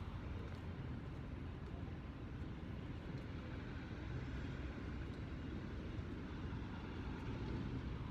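Steady low engine and road rumble of a moving bus.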